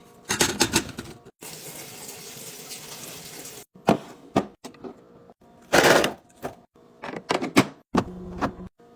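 Quick clicks, taps and knocks of containers and lids being handled during fridge restocking. About a second and a half in there is a steady hiss for about two seconds, and a louder rustling burst comes about six seconds in.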